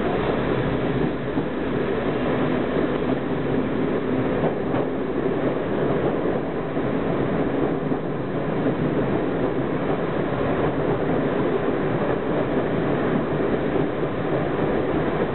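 Diesel multiple unit running along the line, heard from inside its rear cab: a steady mix of diesel engine drone and wheel-on-rail noise.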